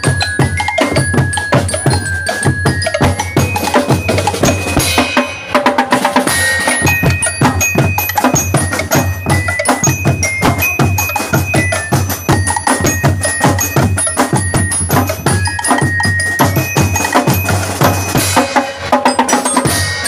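Drum and lyre band playing a Latin dance beat: bell lyres ring out a melody over fast, steady strokes on marching snare and bass drums, with a brief lull about five seconds in.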